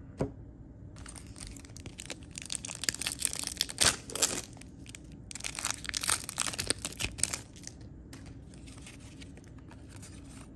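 A pack of baseball cards torn open by hand, its wrapper tearing and crinkling in two spells of a few seconds each, the first about two seconds in and the second about six seconds in.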